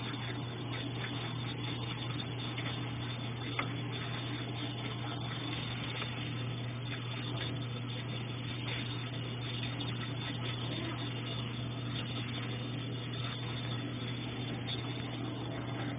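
Consul Ideale 4 kg washing machine filling with water for the rinse: steady running water with a constant low hum.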